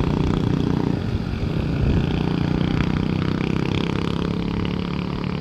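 A motor vehicle engine running steadily with a low hum.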